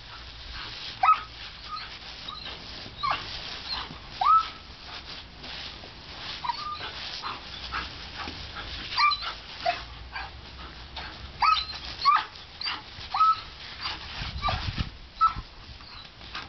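German shepherd puppy whining and yelping over and over in short, high cries as she plays in a garden hose's spray, with the hiss of the water jet underneath.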